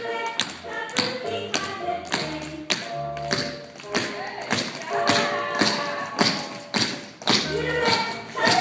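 Toddlers' tap shoes clicking on a wooden studio floor as they step along, with music playing.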